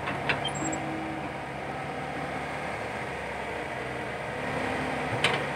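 Komatsu PC120-5 hydraulic excavator's diesel engine running steadily under load as the machine swings and dumps a bucket of sand, with a sharp clank shortly after the start and another near the end.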